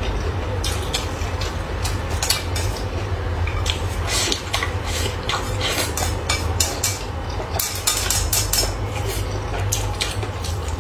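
Eating utensils clicking and clinking against dishes and bowls in frequent, irregular taps, over a steady low hum.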